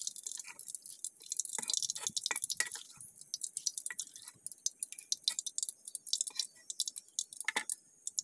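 Hot oil in a wok sizzling and crackling with many small pops after a batch of kaffir lime leaves has been fried, with oil dripping back from the wire strainer held over it. The hiss is densest for the first few seconds, then thins to scattered pops.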